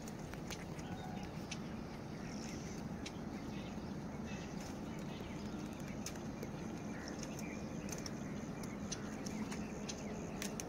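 Open wetland ambience: a steady low rumble with faint scattered clicks and a few faint, distant bird calls.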